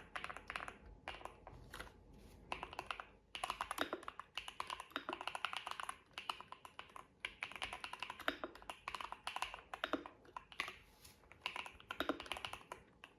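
Typing on an Akko MonsGeek M1W mechanical keyboard fitted with factory-lubed Akko V3 Cream Yellow Pro linear switches and double-shot PBT keycaps: rapid keystrokes in runs, broken by brief pauses.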